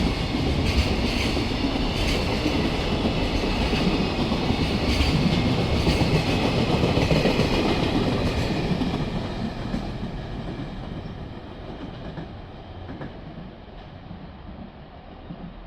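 Train running past on the rails, its wheels clicking over the rail joints, then fading away as it moves off in the second half.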